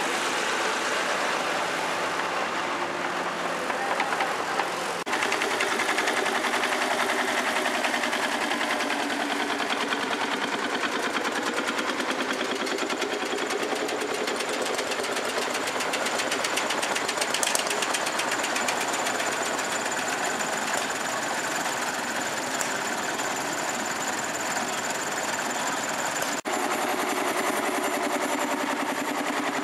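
An engine running with a rapid, even beat, with voices in the background; the sound changes abruptly about five seconds in and again near the end.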